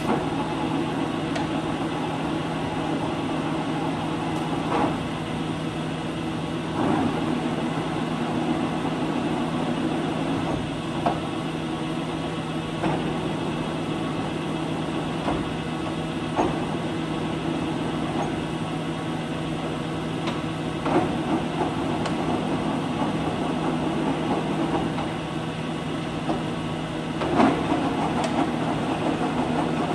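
A 20" x 48" LeBlond engine lathe running under power: a steady mechanical hum of motor and gearing, with a scattering of short knocks and clunks through the run.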